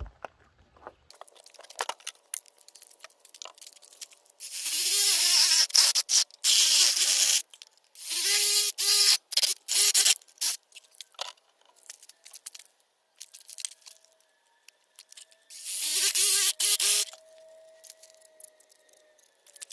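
Power tool cutting in three runs of a few seconds each, a harsh rasping noise over a steady motor hum.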